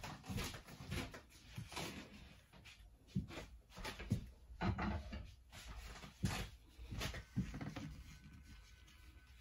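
Irregular light knocks and clatter of kitchen utensils on hard surfaces, a few a second.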